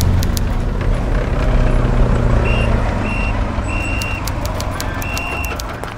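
Layered military-base ambience: a low, steady rumble of vehicle engines under many sharp clicks. From halfway through come short and long high-pitched beeps at one pitch in an irregular pattern.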